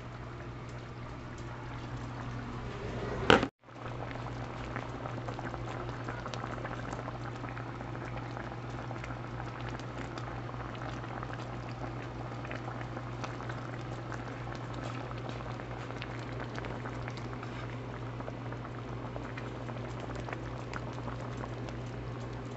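Chicken pieces stewing in gravy in a skillet, the liquid bubbling and popping steadily at a boil. There is one sharp click about three seconds in.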